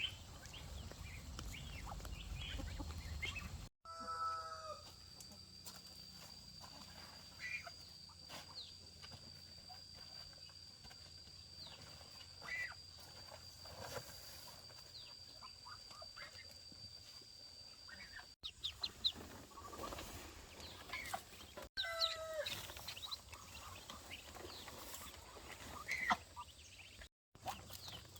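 Chickens clucking and calling on and off, with a couple of longer pitched calls near the start and again about two-thirds of the way in. A steady high-pitched tone runs behind them through the first half.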